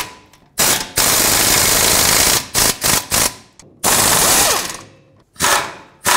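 Pneumatic air ratchet running in bursts as it snugs down the bolts on an exhaust flange. It gives several short rattling bursts and two longer runs of about a second each, the second near the middle.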